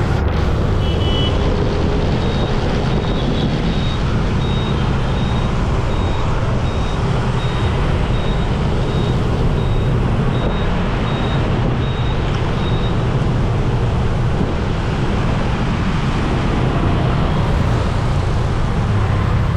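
Road traffic in the rain: a steady low rumble of engines with the hiss of passing vehicles. From about two seconds in to about thirteen seconds, a faint high beep repeats roughly twice a second.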